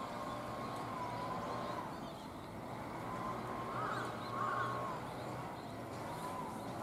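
Outdoor ambience: a distant siren's slow rising and falling wail, with a few short bird calls about four seconds in.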